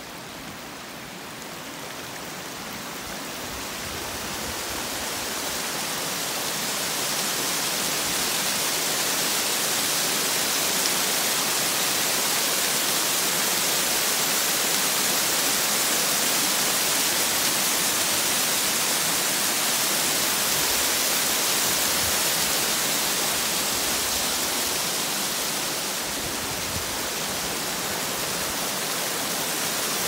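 Small waterfall cascading over rocks: a steady rush of white water that grows louder over the first several seconds, then holds even.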